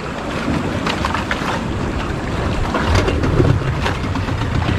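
Wind buffeting the microphone on a small boat at sea. About three seconds in, a boat engine's low, steady running sound comes up under the wind.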